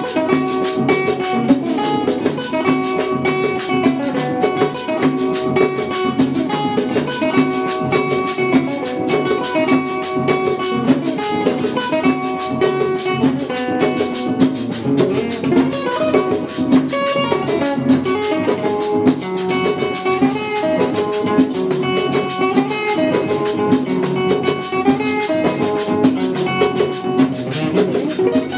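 Instrumental background music with a steady beat and drums.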